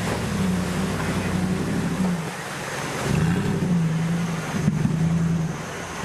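Off-road 4x4 competition vehicle's engine revving hard as it climbs a steep muddy bank. The engine note dips about two seconds in, then comes back up and holds.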